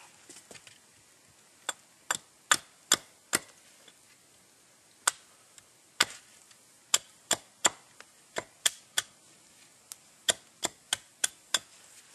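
Small hardware-store axe with a hickory handle chopping into a stick of wood. About twenty sharp wooden knocks come in quick runs of five or six, with short pauses between the runs.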